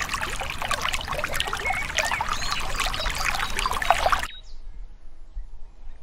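Water poured from a small clay pot splashing and trickling into a shallow glass dish of water, stopping about four seconds in.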